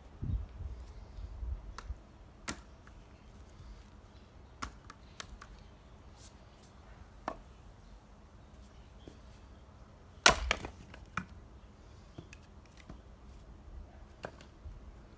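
Axe splitting firewood: one loud sharp strike about ten seconds in, with a dull thud near the start and scattered lighter knocks of wood.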